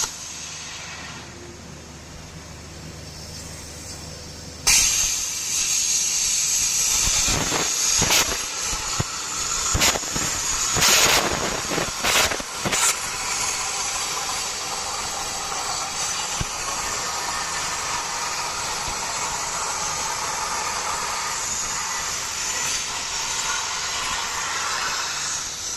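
CNC plasma cutter's torch hissing as it cuts plate. The hiss jumps suddenly louder about five seconds in, with a few sharp pops over the next several seconds, then runs steady.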